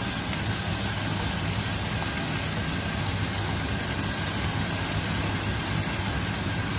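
Steady low hum with a hiss over it from a wok of chicken and vegetables cooking on a gas stove, with no clear knocks or scrapes standing out.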